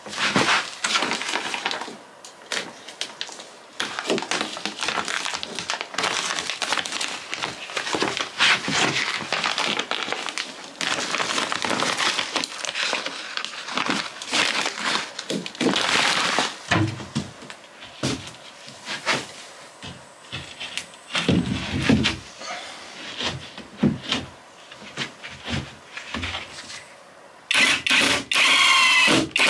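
Plastic sheeting crinkling and rustling in irregular bursts as it is pulled about and cut. Near the end a cordless impact driver starts, rattling rapidly as it drives a screw into an OSB floor panel.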